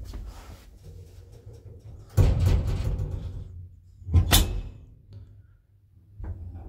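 Old lift's swing landing door shutting with a bang about two seconds in, followed by a second sharp clatter about two seconds later. After a short hush, the lift's motor starts near the end with a low rumble as the car sets off upward.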